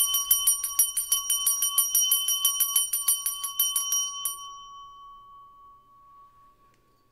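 Small metal hand bell shaken rapidly, about six strikes a second, over a tarot deck; the shaking stops about four seconds in and the bell's lowest tone rings on, fading away.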